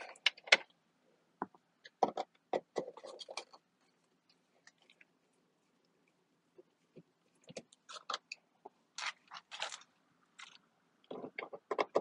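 Scattered clicks and scrapes of hand tools and bolts as the 7 mm bolts holding a car's interior door panel are worked out. The sounds come in short bunches: one at the start, another about two to three and a half seconds in, then a quiet stretch, and more from about seven and a half seconds on.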